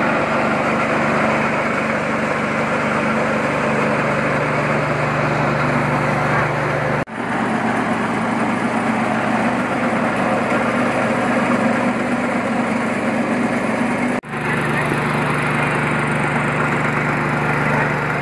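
Engine-driven mini rice mill running, its vibrating sieve shaking rice grain: a loud, steady mechanical noise with a steady hum. The sound breaks off for an instant twice, about 7 and 14 seconds in, and picks up again at once.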